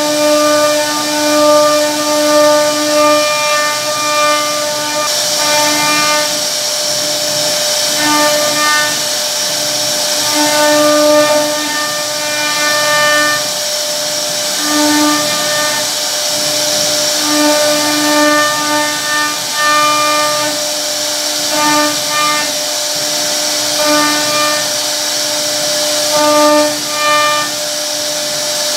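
CNC router spindle carving a wooden door panel: a steady high whine at one fixed pitch over a hiss of cutting, the whine swelling and fading every second or so as the bit's cutting load changes.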